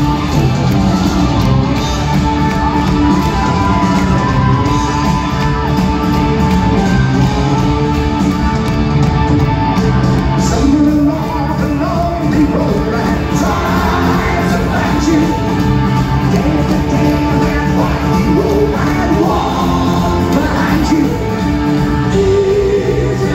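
Live rock band playing loudly in a concert hall, with singing, heard from within the audience.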